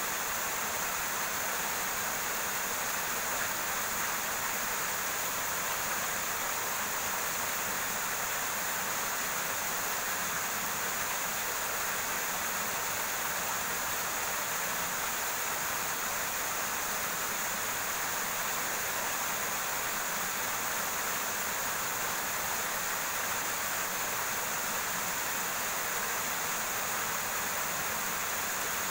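Steady rushing of a river flowing over rocks, unchanging throughout.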